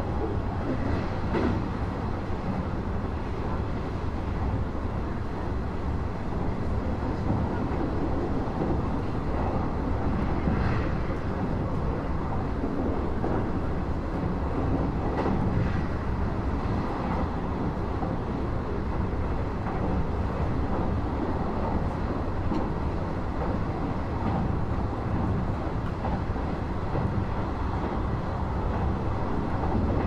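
Cabin noise inside a Nishitetsu Tenjin Ōmuta Line limited express electric train running between stations: a steady low rumble of the wheels and running gear on the track.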